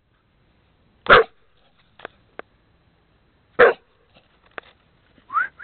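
Dog barking twice, about two and a half seconds apart, with a few faint clicks between and a short rising yip near the end.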